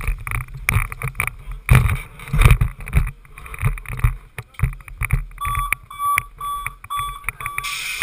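Buffeting and knocks on a helmet-mounted camera. About two-thirds of the way in comes a run of five short, high electronic beeps, roughly two or three a second, and then a sudden rise in hiss.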